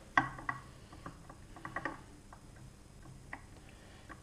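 Light, irregular clicks and taps of a small metal disc brake pad being handled and seated into the Lambretta TV175 brake hub casing, the sharpest just after the start, over a faint steady low hum.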